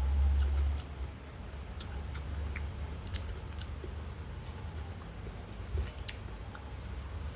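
Close-up eating sounds: chewing and biting with scattered small wet clicks, after a low rumble in the first second.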